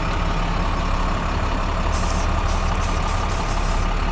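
Flatbed tow truck's engine idling steadily while its air system is aired up; about halfway through, a quick run of short compressed-air hisses from the newly fitted air blow gun being triggered in bursts.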